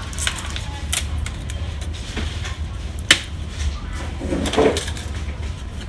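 Orange plastic packing restraints being pulled out of an HP LaserJet M15w laser printer's interior: a few sharp plastic clicks, the loudest about three seconds in, and a short rustling scrape near the end, over a steady low hum.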